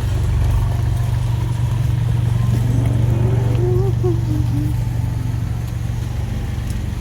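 Steady low rumble of a car being driven, heard from inside the cabin. About halfway through, a short wavering tone rises and falls over it.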